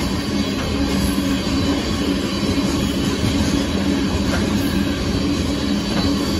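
Covered hopper cars of a Union Pacific grain train rolling past at speed, a steady rumble and clatter of steel wheels on rail.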